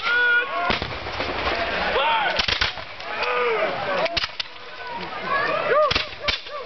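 Black-powder muskets fired from a line of soldiers in a ragged, uneven string of shots, several sharp cracks a second or two apart, mixed with men's shouting voices.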